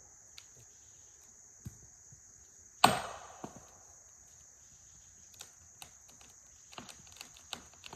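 Wood cracking: one loud sharp crack about three seconds in, with smaller snaps and ticks scattered around it, over a steady high-pitched insect drone.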